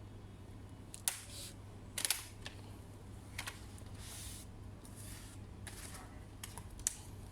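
Sharp clicks and handling noise from an Acer Nitro 5 AN515-51 laptop's case and parts being worked apart by hand: a click about a second in, a quick cluster of clicks about two seconds in, a rustle midway and another click near the end, over a low steady hum.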